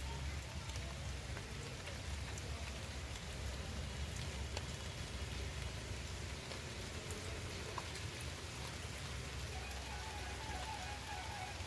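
Steady rain falling on leaves and bare ground, with a few sharper drop ticks now and then.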